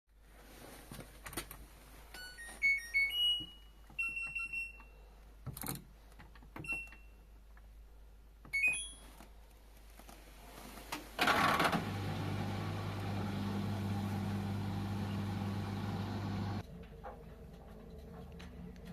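LG washing machine control panel beeping as buttons are pressed: short chime tones, some in rising steps, and single beeps with button clicks over the first nine seconds. About eleven seconds in the machine starts with a sudden rush and runs with a steady hum for about five seconds, then cuts off suddenly.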